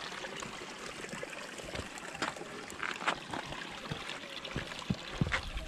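Shallow hill stream trickling steadily over and between stones, with a few sharp scuffs and clicks of footsteps on the stony path.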